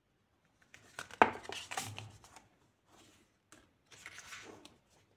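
Pages of a paperback book being turned and flipped by hand, in two rustling bursts, the first with a sharp tap about a second in.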